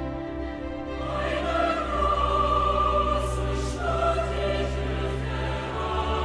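Background music: voices sung in long held notes as a choir over a low sustained chord, growing fuller and louder about a second in.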